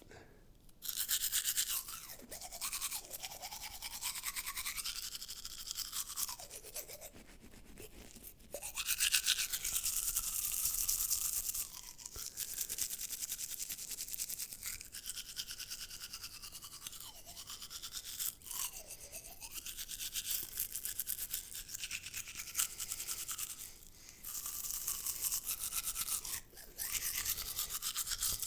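Teeth being brushed: a toothbrush scrubbing back and forth in the mouth, with short pauses now and then.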